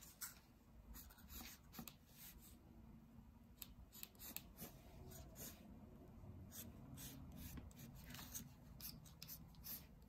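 Faint scratching of a pencil drawing a curved line on folded white paper, in short irregular strokes.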